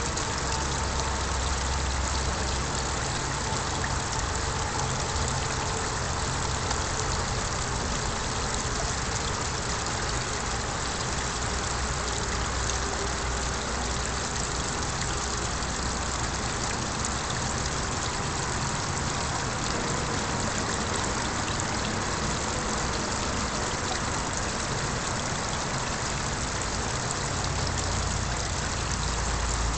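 Steady splashing and trickling of a small garden pond waterfall, with a low rumble underneath that is stronger for the first few seconds and again near the end.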